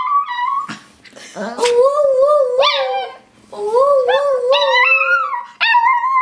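Small dog singing: a run of drawn-out howls with a wavering pitch, about four calls with short breaks between them. This is its sung 'I love you'.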